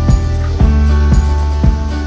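Background music with a steady beat of about two beats a second over held bass and melody notes.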